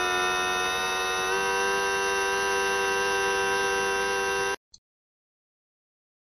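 Air-conditioner compressor making high-frequency noise: a steady whine of several tones at once that shifts slightly a little over a second in and cuts off suddenly after about four and a half seconds, followed by a brief click.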